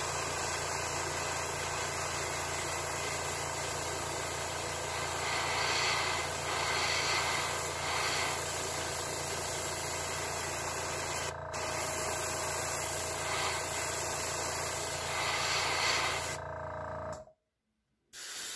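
Airbrush hissing steadily as it sprays opaque black paint through a stencil onto a crankbait, over a steady low hum. The sound cuts out briefly near the end.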